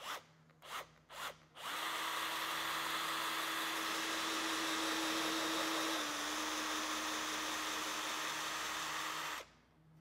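Cordless drill boring a pilot hole for a stainless screw eye into the top edge of a painted centerboard. Three short trigger blips come first, then a steady run of about eight seconds whose pitch dips slightly about six seconds in, and it stops suddenly near the end.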